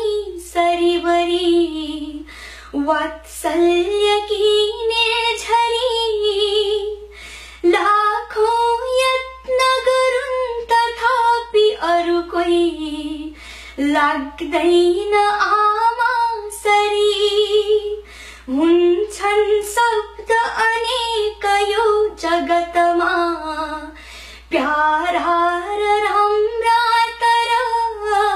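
A woman singing a Nepali poem solo and unaccompanied, in phrases of a few seconds with long held notes and short breaths between them.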